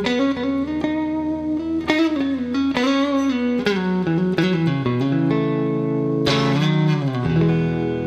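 1980 Gibson ES-335 TD semi-hollow electric guitar with humbucking pickups, played with a pick: a run of single-note lines with notes bent and wavering in pitch, then longer ringing lower notes in the second half.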